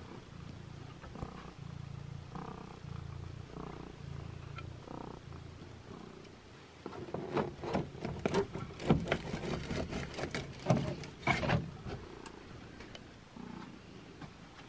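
A cat purring in slow, low rumbles. Then a clear plastic box is handled, with loud crackles and clicks for several seconds.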